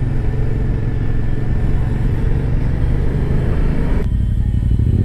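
Yamaha MT-07's parallel-twin engine with an Akrapovič exhaust, running steadily at low revs. About four seconds in the sound shifts abruptly to a steadier, deeper idle.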